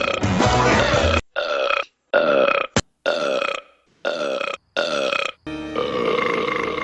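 Cartoon character belching: a string of short, pitched burps about half a second each with brief gaps between, then a longer drawn-out burp starting near the end.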